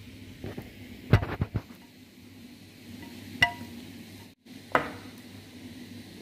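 Chopsticks and a bowl knocking and clinking while eating: a quick cluster of knocks about a second in, then two sharper, briefly ringing clinks later on, over a steady low hum.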